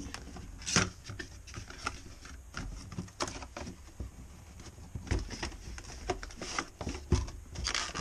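A small cardboard retail box being opened and unpacked by hand: irregular rustling and scraping of card, with a few sharp taps and flap clicks, busiest in the second half.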